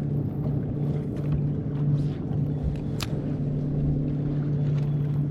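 Boat motor running with a steady hum and low rumble, with a sharp click about three seconds in.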